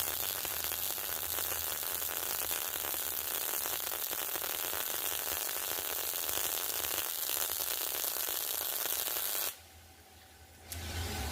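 Welding arc crackling steadily while a bead is laid on steel tubing, then stopping abruptly about nine and a half seconds in. A low hum starts near the end.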